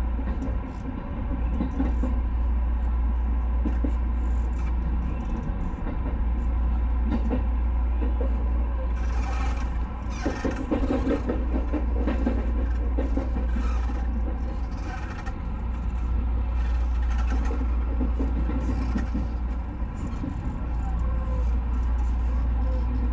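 JR West 221 series electric train running, heard from inside the car: a steady low rumble with faint steady tones over it, growing noisier for a few seconds about halfway through.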